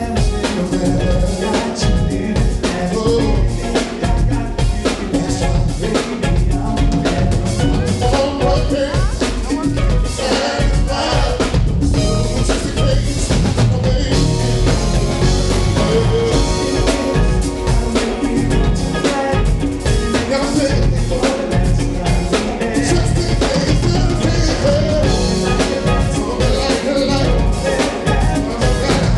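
Live band playing a song, a full drum kit keeping a steady beat under the other instruments.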